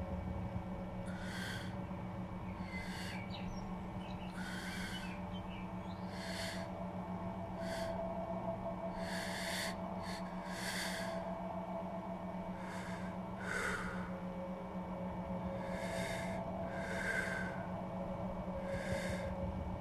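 A climber's heavy breathing close to the microphone, a hissing breath about every second and a half, from the effort of jamming up a crack. A steady low hum runs underneath.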